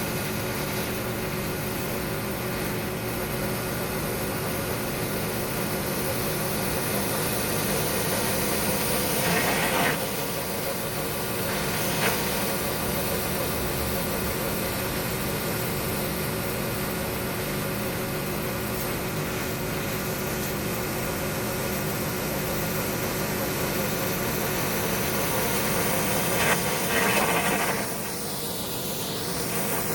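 Pressure washer running steadily: an engine hum with a high hiss of water spray. There are a few brief louder swells, about a third of the way in and again near the end.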